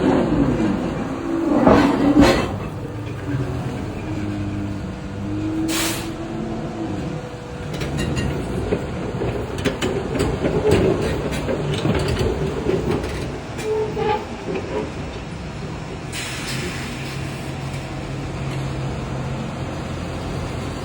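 Electric mining excavator loading ore into railway wagons: its electric drives hum, rising and falling in pitch, with clanks and knocks throughout. A loud impact comes about two seconds in, and a burst of hiss about sixteen seconds in.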